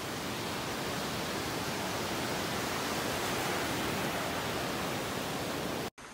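Sea surf breaking on a sandy beach: a steady rushing noise that cuts off abruptly near the end, giving way to a fainter hiss.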